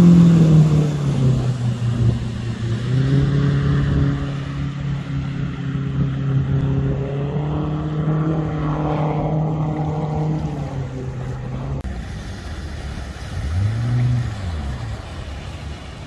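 Mercury F150 four-stroke outboard driving a water-jet nozzle on a hard-hulled boat at high speed. Its steady engine note drops in pitch as the boat passes close, holds, then falls away when the throttle comes off about twelve seconds in. A brief rise and fall of revs follows near the end, over wind and water noise.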